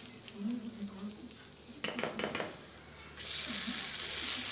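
Hot tempering oil with mustard seeds, cumin and curry leaves being tipped from a kadai onto a steamed semolina cake. A spoon scrapes and taps against the pan a few times about two seconds in, and a hissing sizzle starts suddenly about three seconds in as the hot oil hits the cake.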